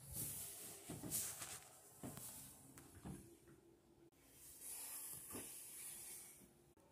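Faint rustling in two stretches, with a few soft knocks about a second apart.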